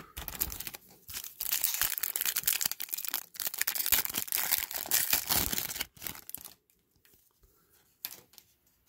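Foil trading-card pack being torn open, the wrapper crinkling and tearing for about six seconds, followed by faint handling of the cards.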